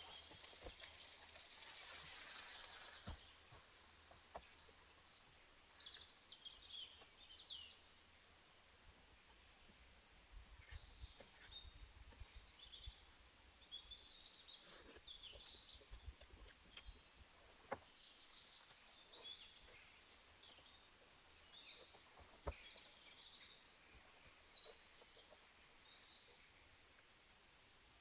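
Faint scattered bird chirps and calls, with a few sharp clicks or knocks, the loudest two about eighteen and twenty-two seconds in.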